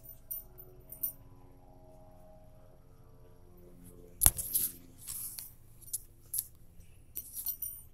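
Handling noise from a phone being moved about: scattered light clicks and metallic clinks, with a sharp knock about four seconds in followed by a few short rustles.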